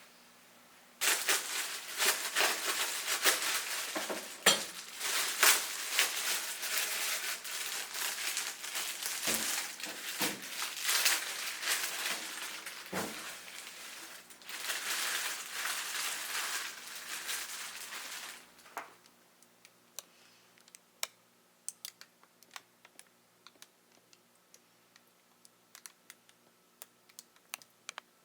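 Crinkling and rustling of something being handled, dense and busy for about seventeen seconds, then only scattered light clicks and taps.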